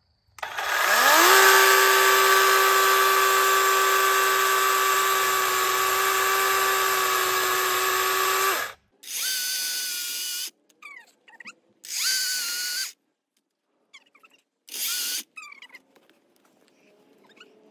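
DeWalt 20-volt battery chainsaw's electric motor spinning up with a rising whine, then running steadily for about eight seconds as the chain cuts into a small tree trunk before stopping abruptly. Three short bursts of the saw follow as the trigger is pulled briefly.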